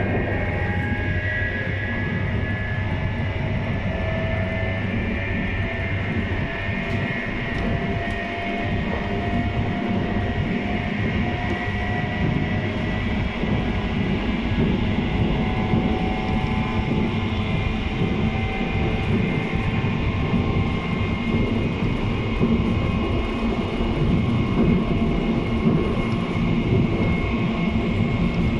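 JR East 719 series electric multiple unit running at speed, heard from inside the car: a steady rumble of wheels on rail with a motor whine whose pitch creeps slowly upward as the train gathers speed. This unit is labelled an abnormal-noise car.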